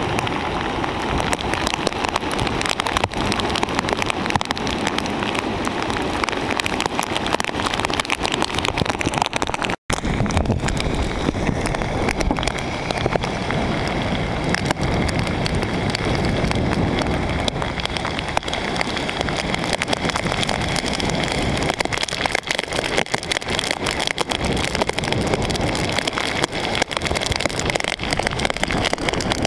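Hurricane Bill's gale-force wind buffeting the microphone in a steady roar, over rough harbour water with waves washing against a rock breakwater. The sound cuts out for an instant about ten seconds in, where two clips are joined.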